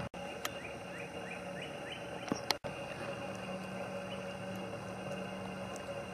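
Outdoor background: a steady hiss and low hum, with a quick run of about six short rising chirps early on and a few sharp clicks. The sound drops out for an instant twice, about a second apart from the clicks.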